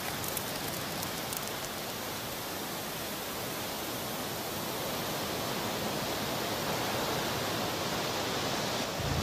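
Dry brush burning: a few crackles in the first second or so, then a steady rushing hiss that slowly grows louder.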